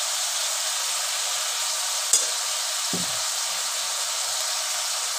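Water lily stems frying in oil in a kadai on low heat: a steady sizzle, with a sharp click about two seconds in and a soft knock a second later as a spatula stirs them.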